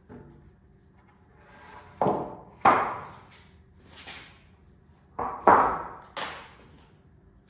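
Wooden boards dropped and laid down on a concrete floor: a run of sharp wooden clatters, two about two seconds in, a light one near four seconds and three more between five and six seconds, each ringing briefly in the metal-walled shop.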